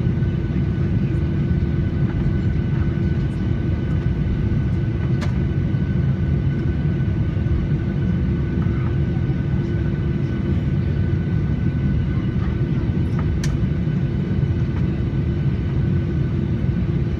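Steady low rumble inside an airliner's cabin after landing, from the engines and air system, with a couple of faint steady hums and a few light clicks.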